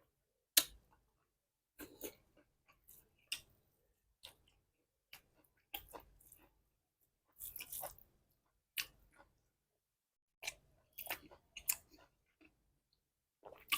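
A person chewing a mouthful of beef curry close to the microphone: short wet mouth clicks and smacks at irregular intervals, several a second at times, with gaps between them.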